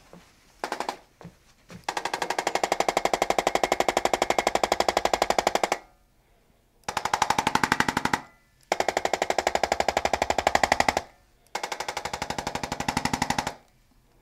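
Corded handheld electric percussion adjusting instrument with a rod tip firing rapid taps into the rib area. It runs in bursts: a long one of about four seconds, then three shorter ones of about two seconds with brief pauses between. A few single clicks come just before the first burst.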